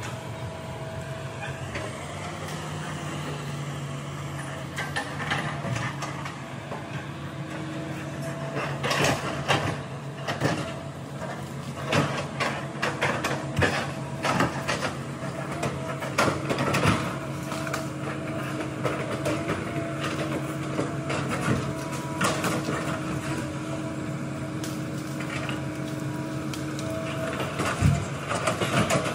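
Hitachi hydraulic excavator's diesel engine running at a steady pitch. From about eight seconds in, frequent sharp knocks and cracks come from the bucket and tracks working among logs and branches.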